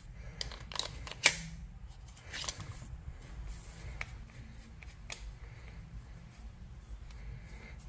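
A few sharp clicks and taps from a pistol and its rail-mounted holster attachment being handled, the loudest about a second in, followed by scattered softer clicks.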